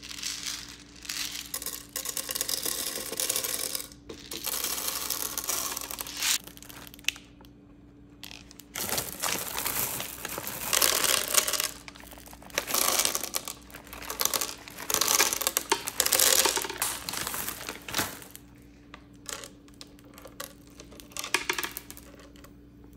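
Dry popcorn kernels poured from a glass jar, rattling and pattering onto the nonstick plates of a waffle iron. Then Skittles candies are poured from a crinkling plastic bag, clattering onto the plates. Near the end there are scattered light clicks as single candies are moved by hand.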